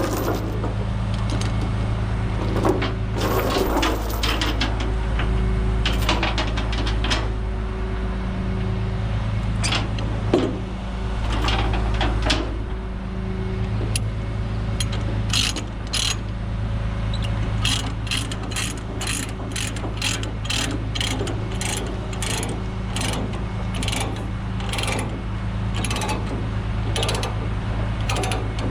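Ratchet chain binder being cranked to tighten a tie-down chain. Its pawl clicks in a steady run of about two clicks a second through the second half, over the steady low hum of an idling diesel truck engine.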